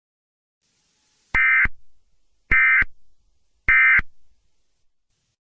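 Emergency Alert System end-of-message tones: three short, buzzy digital data bursts about a second apart, the coded signal that closes an emergency alert.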